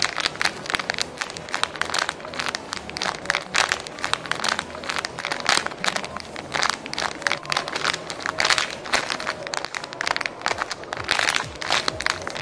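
Clear plastic packaging bag crinkling and crackling over and over as a red heart-shaped foam squishy is squeezed inside it.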